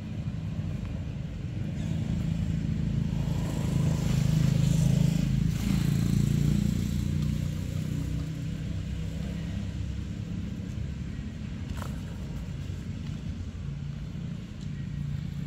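A motor vehicle's engine running, a low steady hum that grows louder about four seconds in and eases off again a few seconds later.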